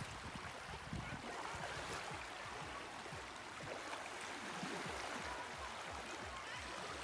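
Shallow Baltic Sea water lapping gently over a sandy shore: a soft, even wash of water.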